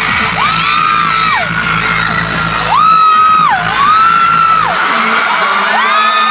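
High-pitched screams from a crowd of fans, each rising, held for about a second and dropping away, coming again and again over loud pop music.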